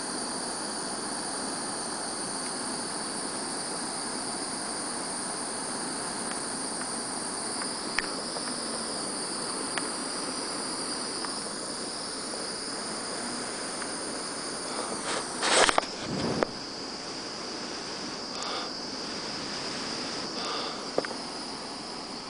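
Handheld gas torch burning with a steady hiss. A brief loud clatter comes about two-thirds of the way through, with a few faint clicks.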